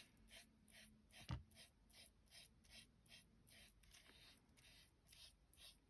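Faint, rhythmic swishing of a makeup brush spreading glitter Mod Podge over a decoupaged ornament, about four strokes a second, with one soft thump about a second and a half in.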